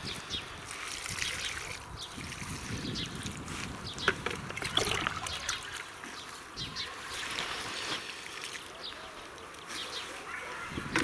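Water trickling and splashing onto garden soil as plants are watered, with a few sharp clicks around the middle.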